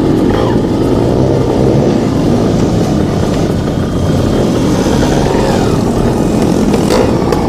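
Two-stroke motocross bike engine running close up, its pitch rising and falling with the throttle.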